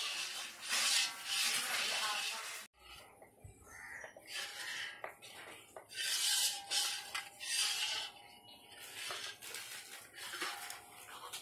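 Metal ladle stirring and scraping a thick gram-flour (besan) mixture against a metal kadai, in repeated rasping strokes, with a sudden brief break about a quarter of the way in.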